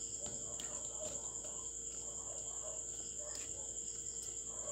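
Spatula stirring beef and onions in a frying pan, with a few light clicks against the pan, over a steady high-pitched tone.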